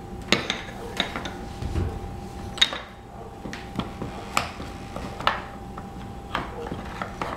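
Wooden toy tool pieces (bolts, nuts, blocks) clacking against each other and against the wooden toolbox as a toddler handles and rummages through them: irregular, sharp knocks, about eight of them, over a faint steady hum.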